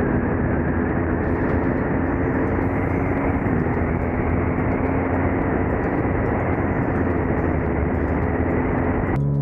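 Sport motorcycle engine running hard at near-steady revs on track, heard from a camera mounted on the bike, mixed with rushing wind over the microphone; the pitch steps down slightly about a third of the way through. Near the end the sound changes suddenly as music comes in.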